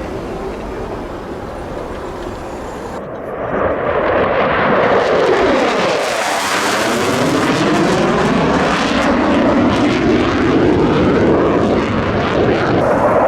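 Jet noise from a Saab JAS-39C Gripen's single Volvo RM12 afterburning turbofan in a low pass. It swells sharply about three seconds in and stays loud, with a sweeping, phasing pitch as the jet goes by close, about six seconds in.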